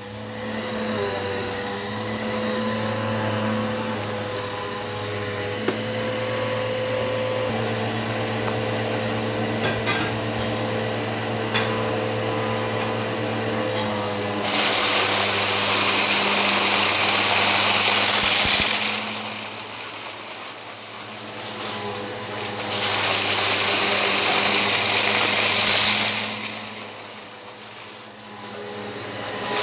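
Eureka PowerSpeed upright vacuum cleaner running steadily, its motor humming with a high whine, picking up rock salt and lentils. A few sharp ticks come in the first half, and twice, about halfway through and again later, a loud rushing hiss rises for about four seconds each time.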